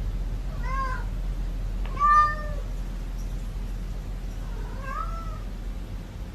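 A cat meowing three times, short arched calls spread over several seconds, the second one the loudest, over a steady low background hum.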